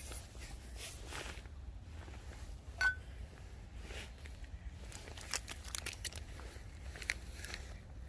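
Small clicks and rustles of camp gear being handled, with one short ringing clink about three seconds in, under a steady low rumble of outdoor background.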